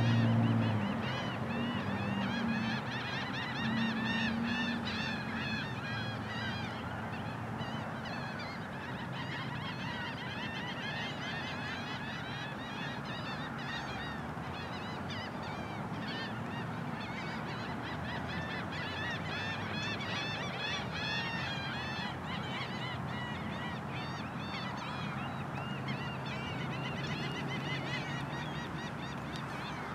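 A large flock of birds calling continuously, many short overlapping calls at once. A low hum is loud at the very start and fades away within the first second.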